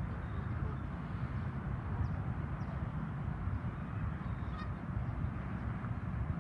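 Waterfowl on a lake calling faintly, with a few short high calls, over a steady low rumble.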